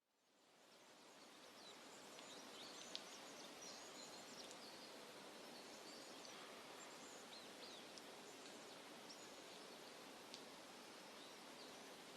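Faint songbird chirps and short calls, many of them, over a steady low hiss of ambience, fading in over the first couple of seconds. Two brief clicks stand out, one about three seconds in and one near ten seconds.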